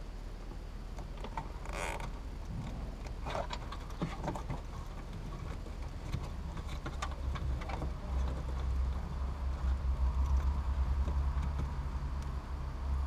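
Hands handling a car's wiring harness and plastic connectors: scattered light clicks and rustling. A low hum comes up about two-thirds of the way in and grows louder.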